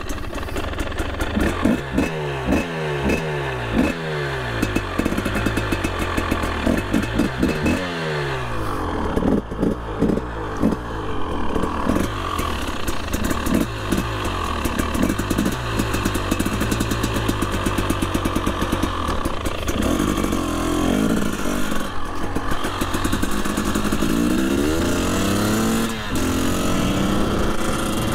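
Husqvarna two-stroke off-road motorcycle with oil injection being ridden, its engine revving up and dropping back again and again in quick rises through the first several seconds, running more steadily for a while, then revving up in a few more rising sweeps near the end.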